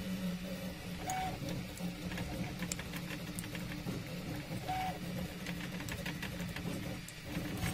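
A 3D printer running with a steady mechanical hum, a short higher tone sounding twice, and scattered light clicks over it.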